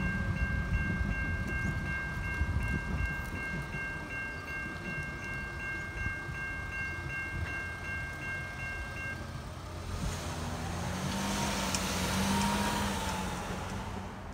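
Safetran Type 3 electronic level-crossing bell ringing at about two strokes a second over a low train rumble, stopping about nine seconds in as the boom gates lift. A rushing noise with a wavering hum then swells and fades near the end.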